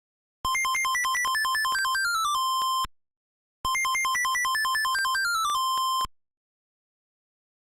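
Monophonic beeping phone ringtone of the Zetafone LT-600: a quick run of short electronic beeps bouncing between a steady low note and a higher note that steps downward, ending on a held beep. The phrase plays twice with a silent gap between.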